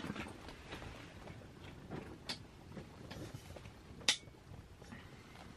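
Faint scattered clicks and knocks of handling, with sharper clicks near the start, about two seconds in and about four seconds in, over a low steady hiss.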